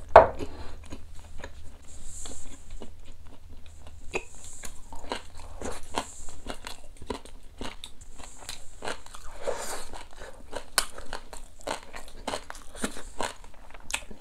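Close-miked chewing of boiled duck meat: wet mouth smacks and clicks, irregular and closely spaced.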